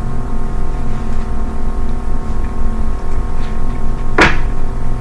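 A steady drone of several held tones, with one sharp click about four seconds in.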